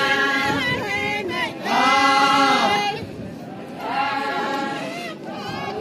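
A group of women singing a Naga folk song together in unison, in long held phrases with short breaks between them.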